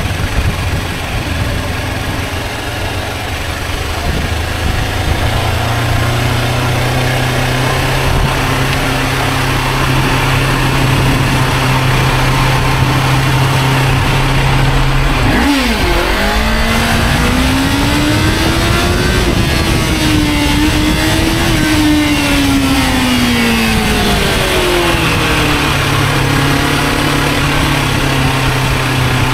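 Sport motorcycle engine running at low speed in traffic. About halfway through it revs up, its pitch climbing, holding for several seconds, then falling back to a steady low run.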